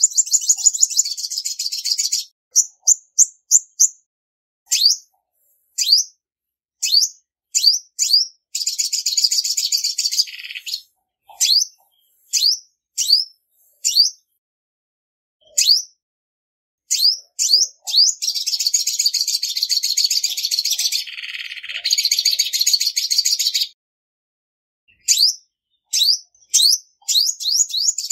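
Female olive-backed sunbird calling: sharp, high chirps that drop steeply in pitch, given singly or in quick runs, broken by three long bouts of fast twittering trills. The longest bout runs from about 18 to 24 seconds in.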